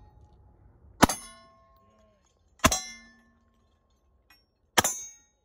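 Three semi-automatic pistol shots, roughly one to two seconds apart, each followed by a brief metallic ring: the clang of a bullet striking a steel target plate.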